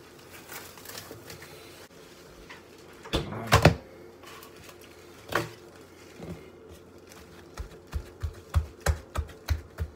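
Knocks of things being set down on a kitchen countertop, the loudest cluster about three seconds in and a single knock about two seconds later. From about seven and a half seconds, a run of soft low thumps, about three a second, as hands press and shape bread dough balls on the counter.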